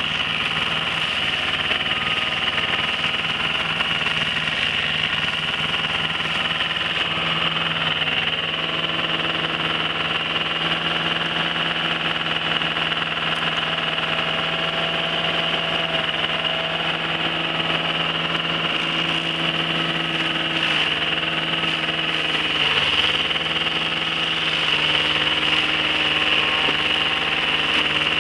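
Predator tracked stump grinder's petrol engine running steadily under load while its toothed cutting wheel grinds out a stump and roots in the soil, with a constant high hiss from the cutting. The engine note dips briefly late on.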